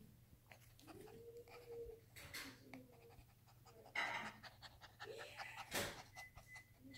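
Rottweiler puppy panting in quick, uneven breaths, loudest about four and six seconds in.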